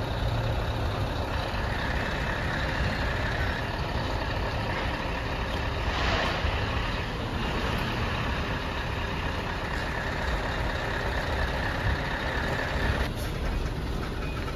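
Heavy-haul truck running steadily as it pulls a multi-axle trailer carrying a train car, with a short rush of noise about six seconds in.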